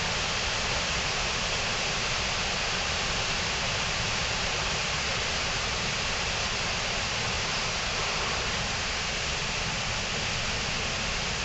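Steady rushing of a fast-flowing mountain stream: an even, unchanging hiss with no breaks.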